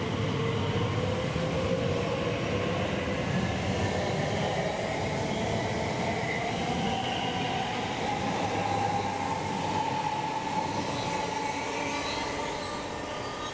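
Class 345 electric multiple unit accelerating past, its traction motors whining in a pitch that rises steadily, over the rumble of its wheels on the rails. The sound eases off near the end as the train draws away.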